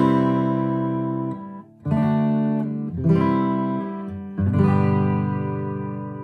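Yamaki Deluxe A 333 acoustic guitar being strummed: full chords struck about two, three and four and a half seconds in, each left to ring and fade.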